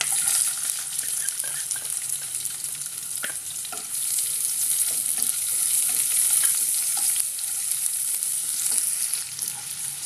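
Chopped onion frying in hot oil in a nonstick kadai: a loud, steady sizzle that starts suddenly as the onion goes in, stirred with a wooden spatula with light scrapes and taps.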